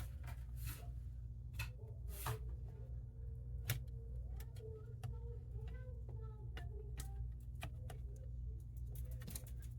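Scattered light clicks and taps of small laptop parts being handled on a workbench, at irregular intervals, over a steady low hum.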